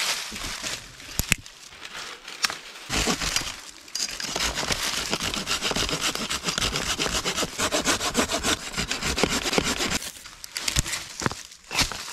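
Folding pruning saw cutting through a dry dead branch in a long run of quick, even back-and-forth strokes. A few sharp clicks of wood near the end.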